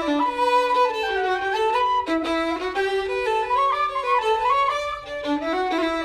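Instrumental background music: a fiddle tune with a quick, stepping melody, at times over a lower held note.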